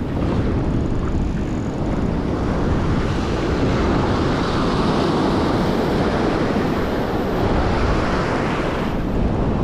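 Ocean surf washing and foaming in the shallows around the microphone, mixed with wind buffeting it: a steady rushing noise with no breaks.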